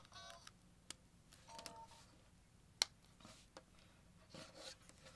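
Faint handling noise of a smartphone and its wired earbud cable, with a few soft clicks and taps, the sharpest about three seconds in, and a short faint tone a little before two seconds in.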